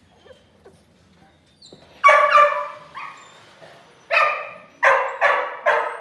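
A dog barking: seven sharp barks starting about two seconds in, the last four in a quick run.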